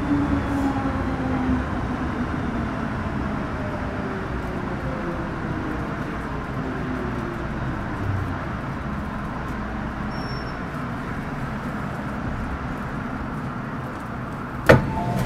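Metro Cammell M-Train electric multiple unit with GEC GTO chopper traction slowing on the approach to a station: steady running noise with whining tones from the chopper and traction motors falling in pitch as the train brakes. A single sharp clack comes near the end.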